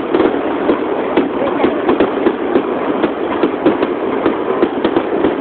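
Aerial firework shells bursting in quick, irregular succession: a dense run of sharp bangs and crackles, several a second, over a continuous din.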